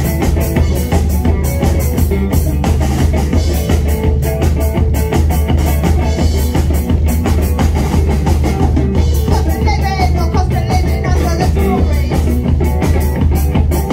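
Live punk rock band playing loud: electric guitar, bass guitar and a driving drum kit, with a voice singing over it in the last few seconds.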